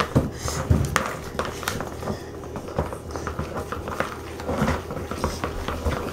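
Chopsticks stirring glue slime in a plastic bowl, with irregular clicks and knocks of the sticks against the bowl.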